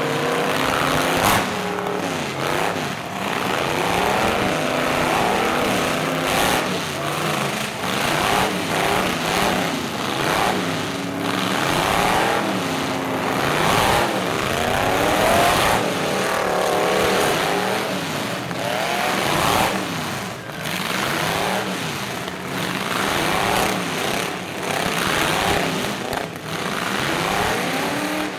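Several demolition-derby pickup truck engines revving up and down at once, their rising and falling pitches overlapping, with a few sharp bangs of the trucks crashing into each other.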